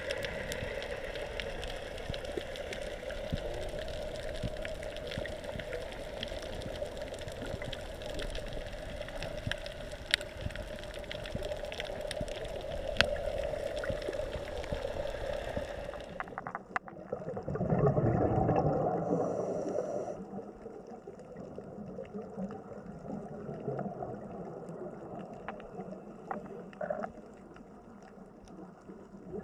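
Underwater sound of a scuba dive: a steady drone with scattered sharp clicks, which cuts off abruptly about two-thirds of the way in. It is followed by one loud burst of exhaled regulator bubbles lasting a couple of seconds, then quieter bubbling water.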